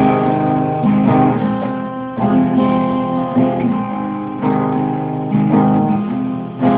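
Guitar strumming chords, a fresh strum about once a second, as the instrumental intro to a song before the singing starts.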